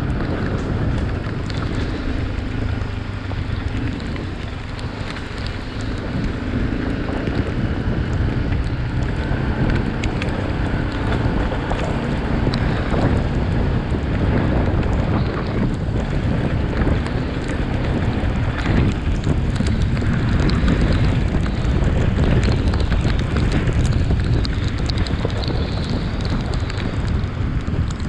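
Wind buffeting the microphone of a moving bike, a steady loud rush of noise heaviest in the lows.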